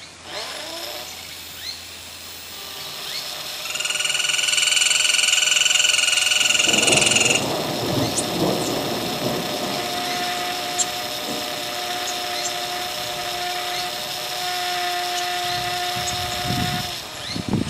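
Electroacoustic concert music built from machine-like sounds. A high, drill-like whine holds from about 4 to 7 seconds, then gives way to a rough noisy texture with scattered clicks. A steady mid-pitched tone sounds over that texture from about 10 to 17 seconds.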